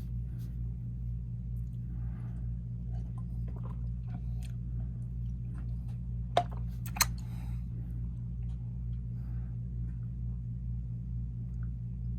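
A steady low hum with a slow pulse, with faint scattered handling clicks and rustles and two sharp clicks a little over six and seven seconds in.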